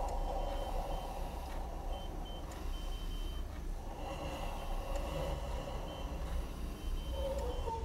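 Short high electronic beeps from hospital medical equipment, coming in irregular runs over a steady low hum and hiss.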